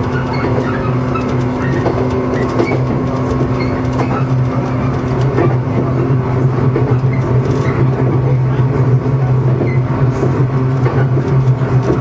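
JR East 115 series electric train running, heard from the cab: a steady low hum over rail noise, with faint short squeaks scattered throughout.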